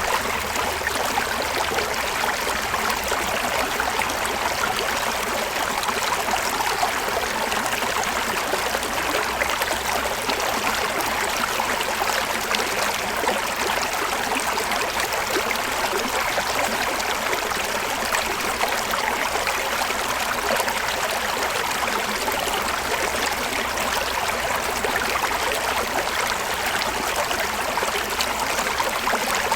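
River water flowing steadily over rocks, a continuous rushing and burbling without change.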